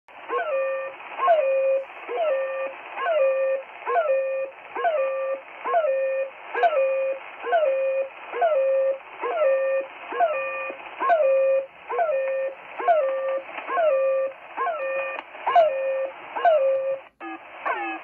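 Shortwave radio in upper-sideband mode receiving 'The Goose', a Russian military channel-marker signal: a honking note, a quick falling sweep onto a steady tone, repeated a little more than once a second over band-limited hiss. About a second before the end it cuts off and a different signal of faster falling tones comes in.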